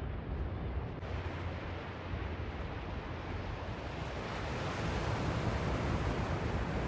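Ocean surf washing steadily, building to a louder wave about four seconds in, with wind rumbling on the microphone.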